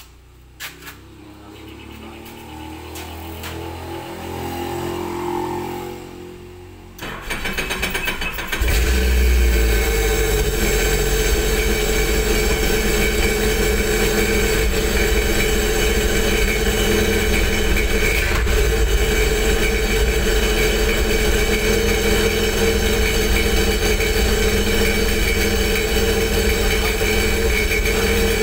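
A Sea-Doo personal watercraft engine is started out of the water: a rising whine over the first few seconds, then the engine catches about seven seconds in and runs loudly and steadily.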